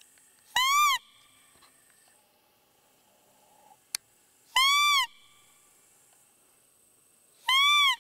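Three loud calls on a roe deer call, a hunter's blown lure: each is a short squeaking whistle that rises and then falls in pitch, with about four seconds and then three seconds between them. They imitate a roe deer to draw the animal in.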